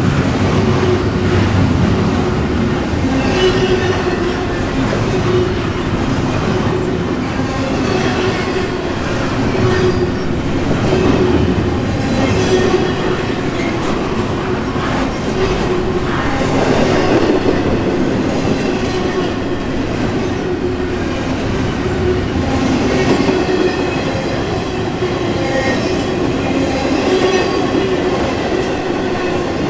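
Intermodal container cars of a freight train rolling past at speed: a steady loud rumble of steel wheels on the rails, with a humming tone running through it and a recurring beat as the wheel sets go by.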